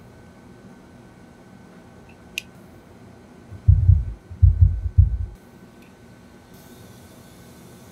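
Several dull, deep thumps in quick succession, about a second and a half in all, as hands press down and bump on a metal mold on the workbench; a single sharp click comes shortly before them.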